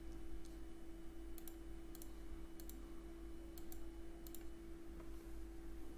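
Computer mouse clicking several times, some clicks in quick pairs, over a steady low hum.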